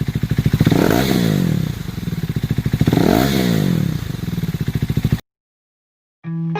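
Helicopter flying over, its rotor blades beating in a rapid, steady chop that swells twice as it passes. It cuts off suddenly about five seconds in, and music starts just at the end.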